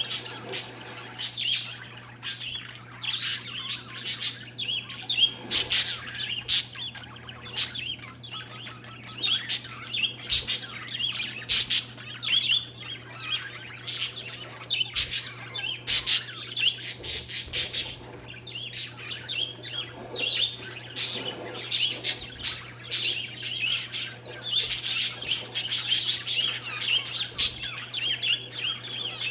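Pet parakeets and zebra finches chirping and squawking together, a dense run of quick overlapping calls that never lets up, over a faint steady low hum.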